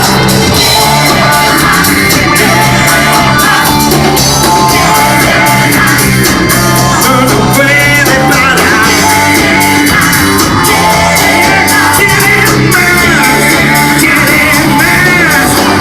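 Loud rock band playing an instrumental stretch of the song, with no words sung, bass and drums under a lead line that bends up and down in pitch.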